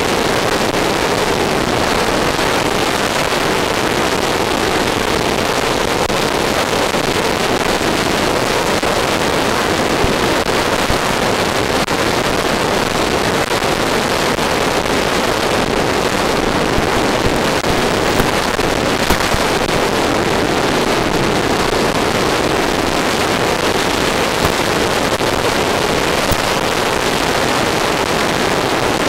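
Steady, even rushing hiss picked up by an RC plane's onboard FPV camera in flight, with no clear motor tone showing through.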